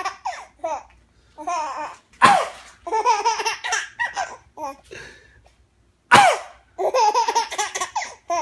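A baby laughing in short, high-pitched giggling bursts, set off each time by a man's sharp cough: one cough about two seconds in and another about six seconds in, each followed by a run of laughter.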